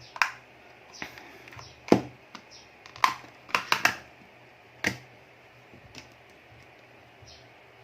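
Scattered sharp clicks and knocks of small hard objects being handled on a repair bench, about seven in all, bunched together around three to four seconds in.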